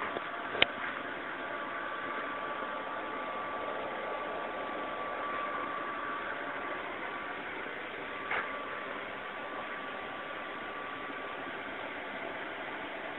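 Student-built three-axis CNC machine running: a steady hiss with a thin high whine. There is a sharp click about half a second in and a brief burst of sound about two-thirds of the way through.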